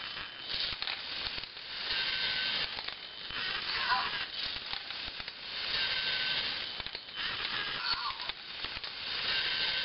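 LEGO Mindstorms NXT 2.0 giving out a crackling, hissing noise in repeating bursts about every two seconds, some with short chirping tones. The owner does not know whether this sound is normal.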